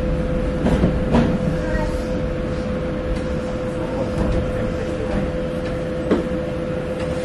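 The inside of a Meitetsu Seto Line electric train's cab, with a steady hum at one unchanging pitch over a low rumble. A few short knocks come about a second in and again about six seconds in.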